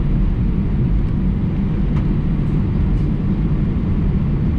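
Steady low rumble inside the cabin of an Airbus A319 taxiing to the gate after landing.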